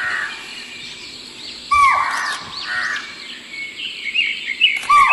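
Birds calling in the forest: a loud call repeats about a second and a half in and again near the end, with smaller high chirps in between.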